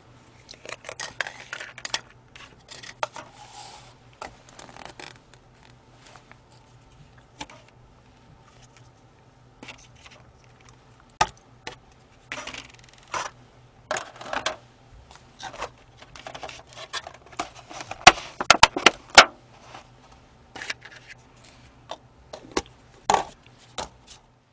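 Scattered light clicks and taps of chopsticks and small cups and lids being handled at a plastic sushi tray, with a quick run of sharp clicks a little past the middle.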